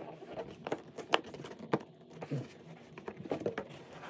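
Cardboard packaging rustling and scraping as a shipping box is handled and its flaps and contents are pulled about, with a few light clicks and knocks.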